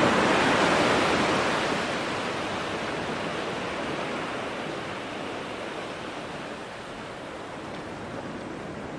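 Ocean surf washing on a beach, loudest at the start and slowly dying away to a softer steady wash.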